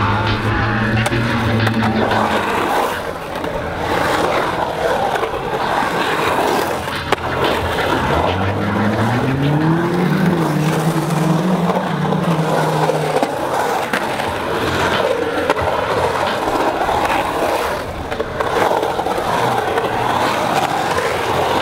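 Skateboard wheels rolling and carving around a concrete bowl: a continuous rough rolling roar that swells and fades with the rider's speed, with a few sharp clacks of the board.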